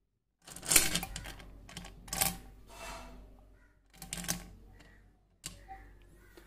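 Small coloured aquarium pebbles clicking and clattering against each other and the glass of an empty fish bowl as they are pushed around the base of a plastic plant, in about four short bursts.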